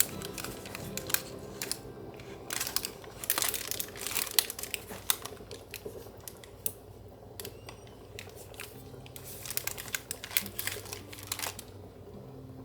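Irregular crinkling and light clicks of something being handled, coming in clusters with short pauses between them.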